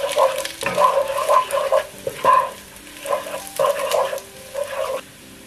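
Wooden spatula scraping and tossing rice against a nonstick wok in a quick run of uneven, croaky strokes that stops about half a second before the end.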